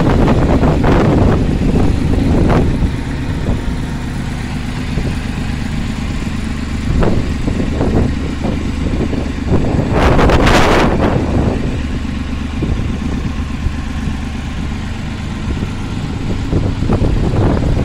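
International 484 tractor's diesel engine running steadily. A loud burst of noise across the microphone comes about ten seconds in, with shorter ones in the first few seconds.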